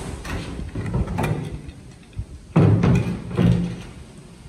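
A series of irregular knocks and thuds, like objects being set down or bumped. The loudest two come close together a little past halfway.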